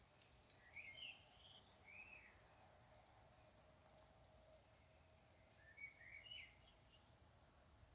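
Faint bird calls, short rising-and-falling notes in two groups, about a second in and again around six seconds, over a steady faint hum and a fast, high-pitched ticking chatter.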